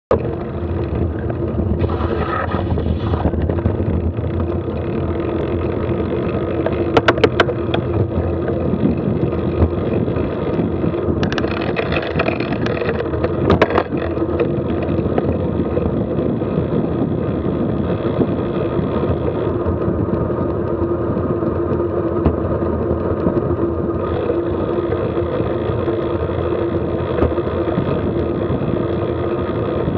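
Steady wind rush and road rumble on a bike-mounted camera's microphone while cycling at about 15 to 20 km/h. A few sharp knocks from bumps come about a quarter of the way in and again near the halfway point.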